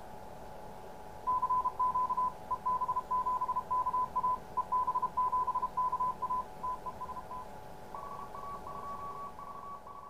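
Morse code (CW) tone near 1 kHz, keyed in dots and dashes, a station sending the callsign EB7KA and 'TEST'. It runs over steady hiss and a few faint steady tones. The keying pauses briefly about seven seconds in, then a fainter Morse signal at a slightly higher pitch starts about eight seconds in.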